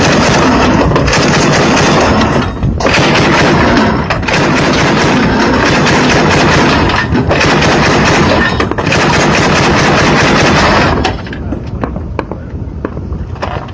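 Belt-fed machine gun firing on full auto: long, continuous bursts broken by brief pauses, about five strings in all, stopping a little over three-quarters of the way through.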